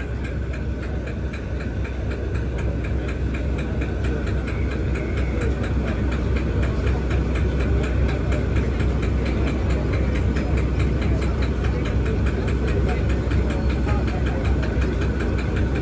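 Class 37 diesel-electric locomotive's English Electric V12 diesel engine idling steadily while standing, growing slightly louder toward the end.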